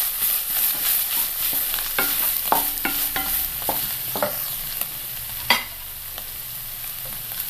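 A wooden spatula stirs and scrapes shredded chayote and coconut in a non-stick wok, with scattered knocks over a steady sizzle as the dry stir-fry, cooked without added water, is dried out. There is one sharp tap about five and a half seconds in, after which the stirring stops and only a fainter sizzle remains.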